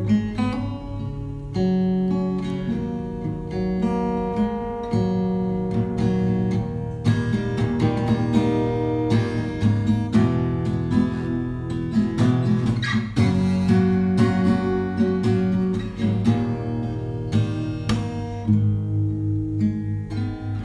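Instrumental background music played on guitar, with a run of plucked and strummed notes.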